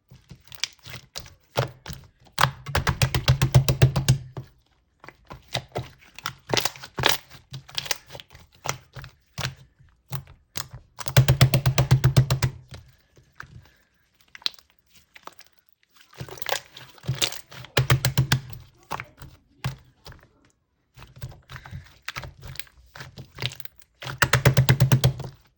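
Clear slime being squished and pressed by hand, giving dense runs of sharp wet clicks and air-bubble pops. They come in bursts of a second or two, several times over, with short pauses between.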